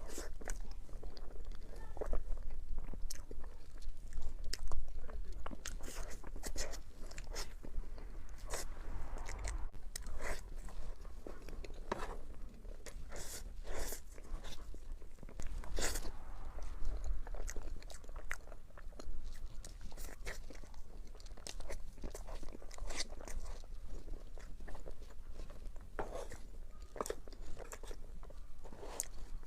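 Close-miked biting and chewing of crunchy chocolate dessert: sharp, irregular crunches, often several a second, with softer chewing between them.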